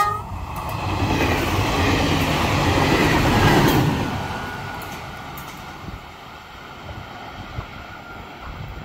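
CP class 592 diesel multiple unit passing, its diesel engine and wheels on the rails growing louder to a peak about three to four seconds in, then fading away.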